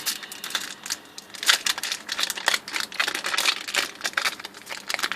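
Foil Yu-Gi-Oh! booster pack wrapper crinkling and being torn open, with the cards inside rustling; an irregular run of sharp crackles.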